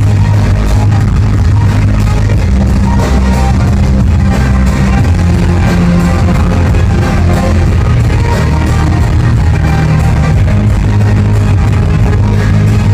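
Live rock band music, with guitar to the fore, played very loud through a PA loudspeaker close to the microphone. The heavy bass swamps the recording and it sounds distorted.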